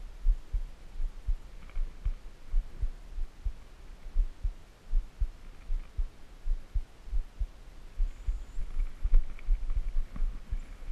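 Irregular dull low thumps, a few a second, over a faint hum: handling and bumping noise picked up by the body-worn camera's microphone.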